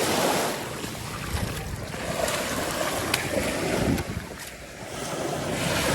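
Sea waves washing in, with wind buffeting the microphone: a rushing noise that swells and eases, with a few brief clicks.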